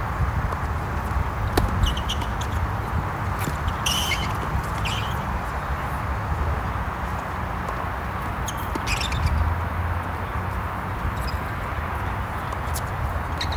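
Tennis rally on a hard court: scattered sharp pops of rackets striking the ball and the ball bouncing, a few at a time, with some short high squeaks. A steady low rumble of outdoor background noise runs underneath.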